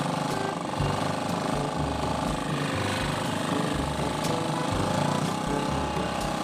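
Motorized wooden fishing boat's engine running steadily at speed, with water splashing off the hull.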